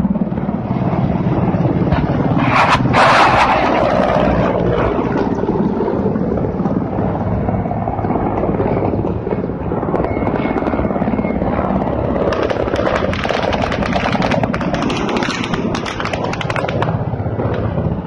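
Low-flying military helicopters passing, a steady beating rotor and engine noise. A brief loud rush of noise about three seconds in.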